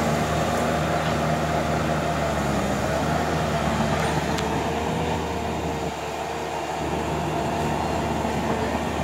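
Crawler bulldozer's diesel engine running steadily, easing off slightly about six seconds in.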